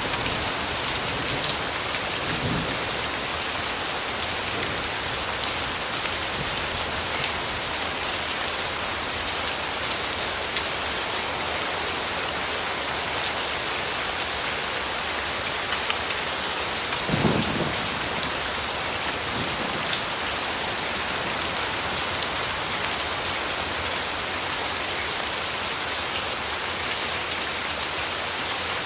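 Steady heavy rain falling on a surface, an even hiss of drops, with a brief low rumble about 17 seconds in.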